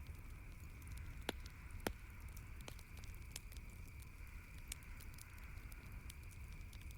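Wood campfire crackling: scattered small snaps, with two sharper pops about a second and a half and two seconds in, over a steady background hiss and low rumble.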